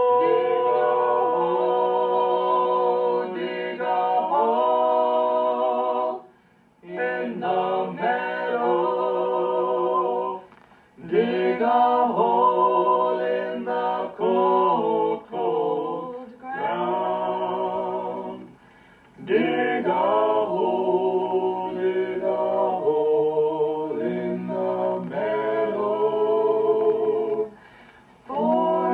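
Mixed-voice a cappella trio, a woman and two men, singing a traditional folk song in close harmony without instruments, in long phrases with short breathing gaps between them.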